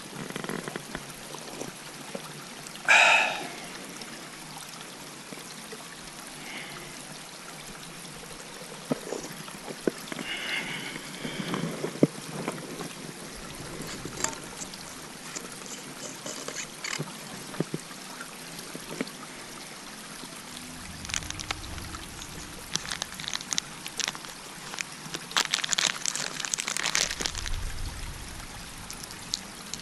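Steady trickle of flowing water, with scattered small knocks and rustles of handling. The loudest is one short, sharp sound about three seconds in, and a busier patch of rustling comes near the end.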